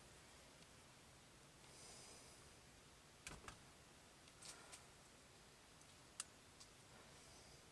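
Near silence: room tone with a few faint, brief clicks from trading cards being handled, the sharpest a little after six seconds in.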